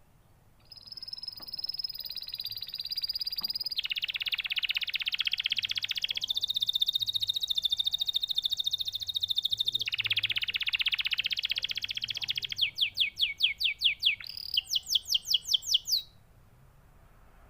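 Canary singing one long unbroken song of fast rolling trills. Near the end it switches to about a dozen quick falling notes, roughly four a second, then stops suddenly.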